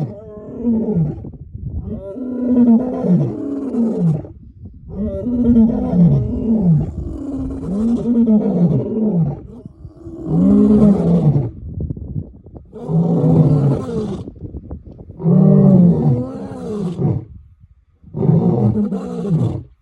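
Lion roaring in a long bout: about seven loud, low calls, each falling in pitch, repeated every two to three seconds.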